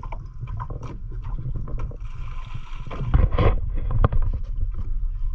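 Wind rumbling on the microphone aboard a small fishing boat, with water sloshing and a few knocks; the loudest burst comes a little after three seconds.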